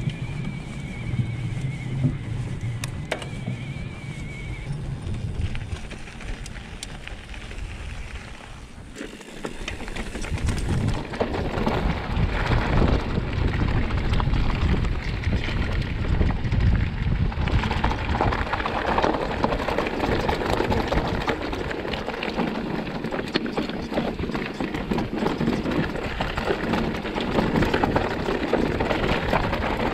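Electric mountain bike rolling over a rocky trail: tyres on stones and gravel with a constant clatter of small knocks from the bike. It gets louder and busier from about ten seconds in.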